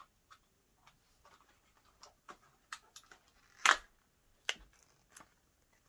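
A toy blind pack's plastic packaging being handled and opened: scattered light crinkles and clicks, with one louder crackle about three and a half seconds in and a sharp click just after.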